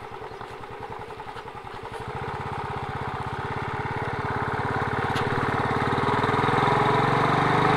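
Motorcycle engine running at low revs with an even thumping beat, getting steadily louder from about two seconds in as the bike picks up speed.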